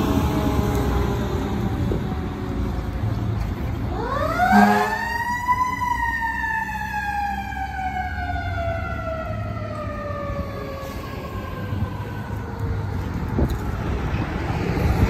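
Fire truck's mechanical siren winding up quickly about four seconds in, then slowly winding down for several seconds. Under it runs the low rumble of the ladder truck's diesel engine as it pulls away, and a brief low blast sounds as the siren starts up.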